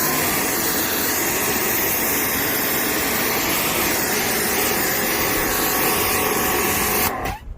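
A motor winds up and then runs steadily at high speed with a whine, cutting off suddenly near the end.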